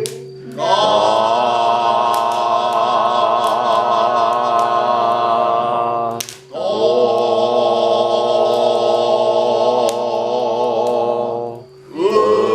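Voices chanting in long held tones, each about five seconds, with short breaks between them.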